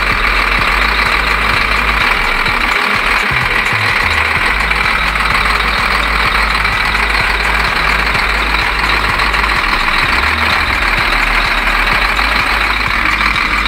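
SDLG wheel loader's diesel engine idling steadily.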